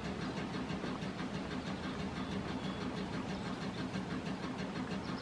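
Union Switch & Signal electro-mechanical code transmitter in a trackside relay case, clicking rapidly and evenly over a low hum. It is sending 180-pulse-per-minute code, the Clear aspect, to the signal in rear.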